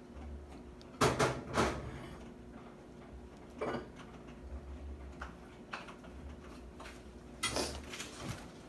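Several short knocks and clatters, as of small objects being handled. They come in clusters about a second in, near four seconds and near the end, with a low steady hum underneath.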